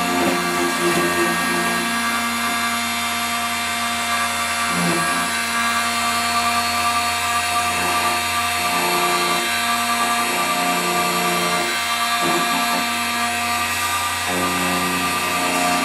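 Multifunction key duplicating machine running, its motor and cutter whining steadily while the cutter works the blank, with the lower sound shifting every second or two as the cut moves along the key.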